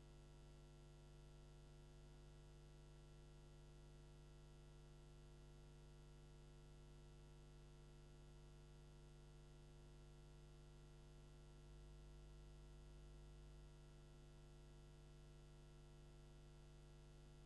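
Near silence with a faint, steady electrical hum on the audio line, its lowest part swelling slightly for about two seconds partway through.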